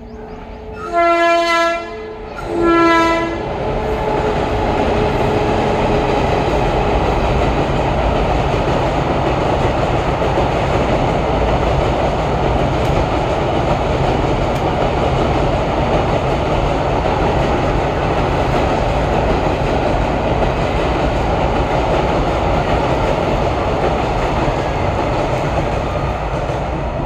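Train horn sounding two blasts of about a second each, then a passenger train's coaches crossing a steel girder bridge with a steady, heavy rumble that eases slightly near the end.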